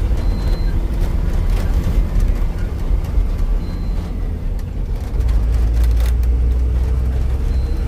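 A 14-wheeler diesel truck's engine running under way, with a steady low rumble of engine and road heard from inside the cab. The low drone grows stronger about five seconds in and eases near the end.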